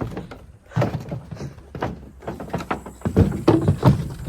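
A run of irregular knocks and thuds, loudest and closest together about three to four seconds in.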